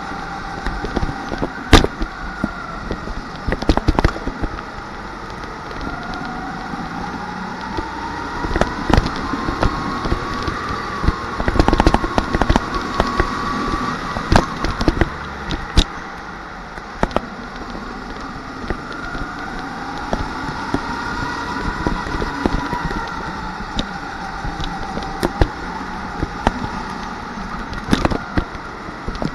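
Rental go-kart running at racing speed, heard from on board: its motor whine rises and falls as the kart speeds up and slows through the corners, with scattered sharp clicks and knocks from the chassis.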